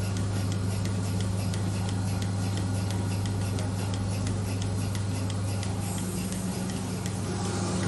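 Milking machine running: a steady low hum from its vacuum pump and motor, with regular ticking that fits the pulsator clicking as it milks the cows.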